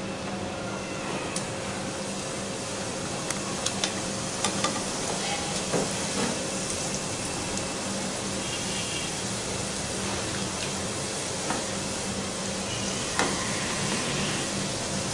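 Small rounds of zeera papri dough deep-frying in hot oil in a steel kadai: a steady sizzle with scattered sharp crackles as more rounds are dropped in.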